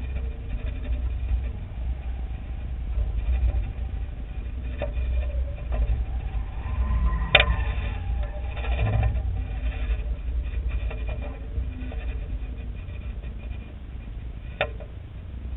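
Wind buffeting a microphone carried aloft: a steady low rumble, with two sharp clicks, one about halfway through and one near the end.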